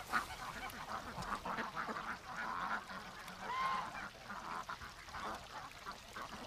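Domestic geese calling softly with short, scattered calls as they feed, and one clearer short honk about three and a half seconds in.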